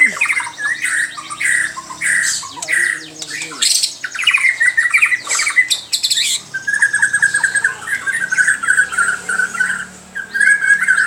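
White-rumped shama (murai batu) singing loudly: quick chattering phrases with sharp clicking notes, then from about halfway a buzzy held note repeated in long stretches. This is the odd song that the keeper finds strange.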